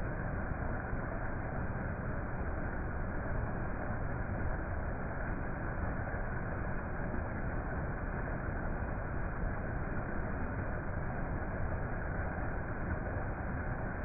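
Waterfall: falling water rushing in a steady, even noise that does not change.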